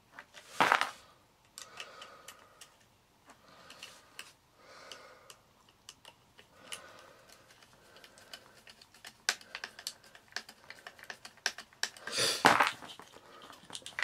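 Small clicks and taps of fingers handling wires and plastic at a vacuum motor's terminal block, pushing wire ends into the connectors. Two louder scuffs stand out, one about a second in and one near the end.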